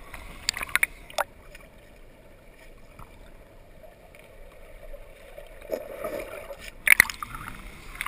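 River water heard with the microphone submerged: splashing as it goes under, then a dull, muffled hush of moving water for several seconds, and sharp splashes about seven seconds in as it breaks the surface.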